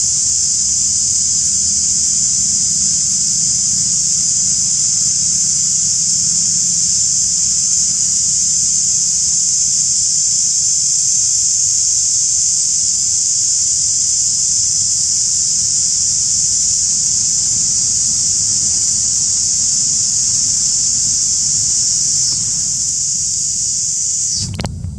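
Loud, steady, high-pitched drone of cicadas over a low rumble. Near the end it weakens, drops in pitch and cuts off.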